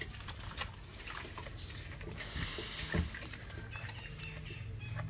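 Water splashing and dripping in a metal basin as a wet, soapy dog is scrubbed by hand, with scattered small splashes and one louder thump about three seconds in.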